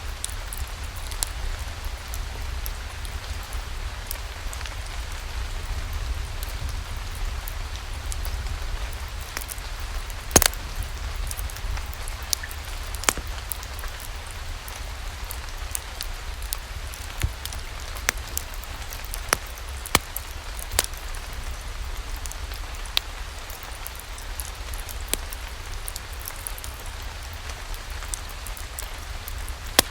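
Steady rain with a low rumble underneath and scattered sharp pops and clicks at irregular intervals. The loudest pop comes about ten seconds in.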